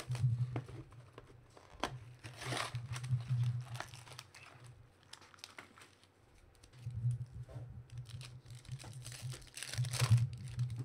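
A foil trading-card pack wrapper being torn open and crinkled by hand, with louder bursts of crinkling about two seconds in and again near the end.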